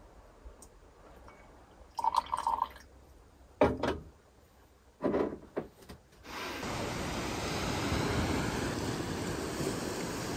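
Coffee poured from an aluminium moka pot into a ceramic mug, with a couple of short knocks as the pot and mug are handled. From about six seconds in, a steady sound of surf and wind.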